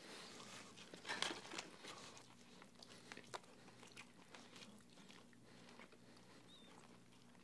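Faint crunching bites and chewing of crispy fried chicken, with the loudest crunches about a second in and scattered smaller ones after, over a low steady room hum.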